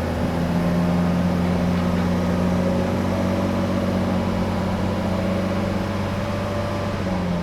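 1991 Mercedes 300CE's straight-six engine running at a steady, slightly raised speed, its pitch sagging a little near the end. The engine is struggling to keep running on its freshly Seafoam-cleaned idle control valve.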